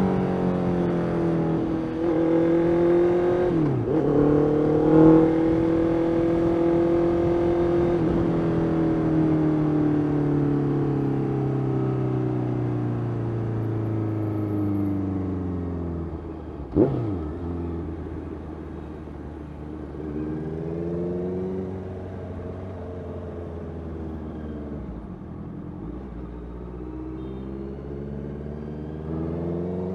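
Honda CBR650F's 649cc inline-four engine running while riding. The revs dip and pick up again about four seconds in, then fall steadily as the bike slows. About seventeen seconds in there is a sharp jump in revs, then low revs, and the revs climb again near the end.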